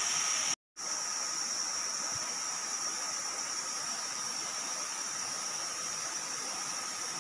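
Steady riverside ambience: the hiss of flowing river water with a constant high-pitched insect drone. The sound cuts out completely for a moment just before a second in.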